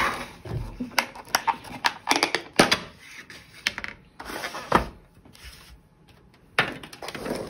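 Thin plastic takeaway containers being handled and their clear lids pulled open: a scattered run of clicks, crackles and rattles of plastic on a wooden table.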